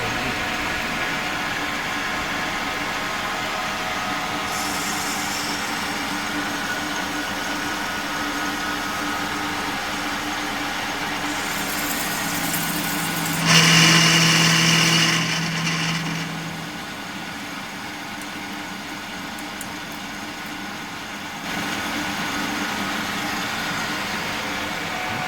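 CNC lathe running steadily with a mechanical hum. About 13 seconds in it grows louder for two or three seconds, with a strong low tone and a bright high whine, then quietens for about five seconds before the steady running returns.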